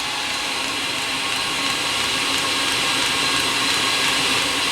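Eberspacher D1L diesel heater's blower fan running with a steady whirring hum that slowly grows louder. The heater is in its start cycle and has not yet lit.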